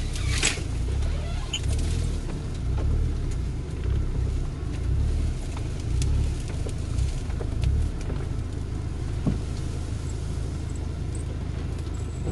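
Hyundai Terracan SUV pushing through overgrown brush off-road, heard from inside the cabin: an uneven low engine and drivetrain rumble, with scattered clicks and scrapes as branches and leaves brush against the body and windshield.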